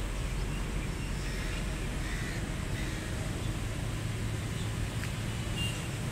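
Outdoor ambience: a steady low rumble, with faint, brief bird calls in the distance about two to three seconds in and again near the end.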